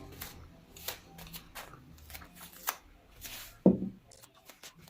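Eating noodles up close: irregular wet clicks and short noisy slurps, with one louder brief low sound about three and a half seconds in.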